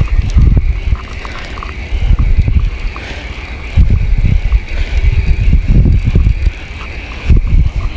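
Spinning fishing reel being cranked to retrieve line, a steady whir with faint ticks, under irregular low rumbling buffets on the microphone.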